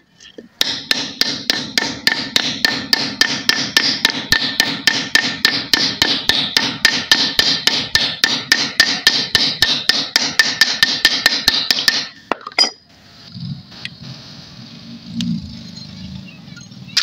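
Rapid, even hammering on metal, about four ringing strikes a second, that stops abruptly about twelve seconds in; quieter handling noise follows.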